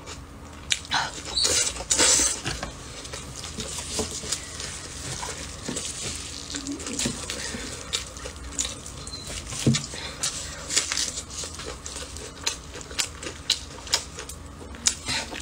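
Close-up eating sounds: chewing and smacking, with meat being torn from the bone by hands in crinkling disposable plastic gloves. Scattered clicks and crackles, with a louder rustling burst about two seconds in.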